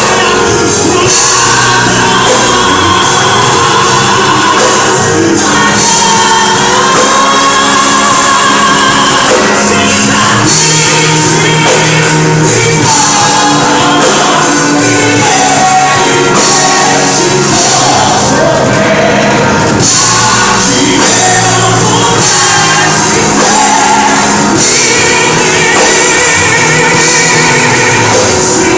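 Live gospel worship song: voices singing with vibrato over a backing band.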